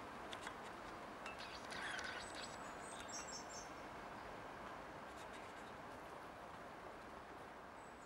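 Faint outdoor background noise, with a few brief, faint high chirps about two to three seconds in.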